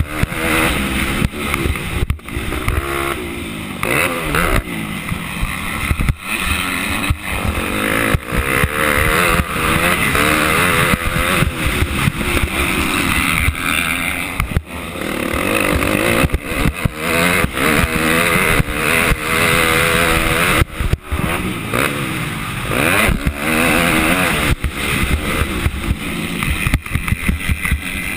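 A 250-class motocross bike's engine revving hard up and down as it is raced around a dirt track, heard from the rider's helmet, with frequent short knocks and buffets cutting across it.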